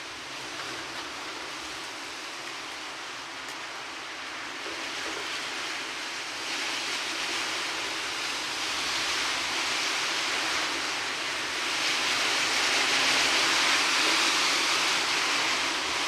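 Steady hiss of heavy rain, growing louder about six seconds in and again about twelve seconds in, then easing slightly near the end.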